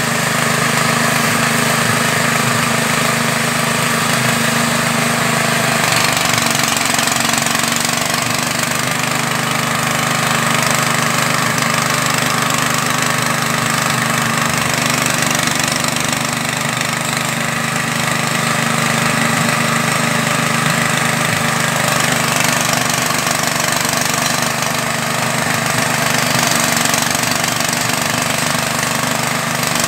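Small engine running steadily, driving a floating fish-feed pellet extruder while it turns out pellets. Its note drops slightly about six seconds in.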